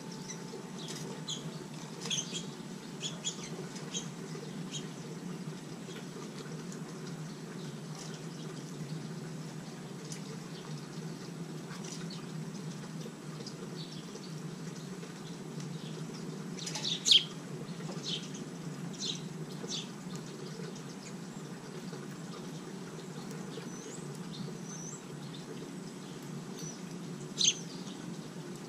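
Small songbirds chirping in short, high chips scattered through, with a cluster of loud ones about 17 seconds in and another loud chip near the end, over a steady low hum.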